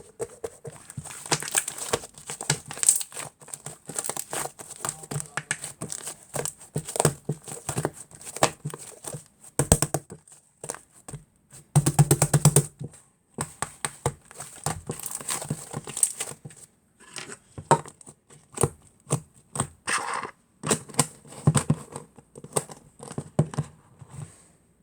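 Fluffy slime being squished and stretched by hand, giving irregular sticky pops and crackles, with a dense run of them about halfway through.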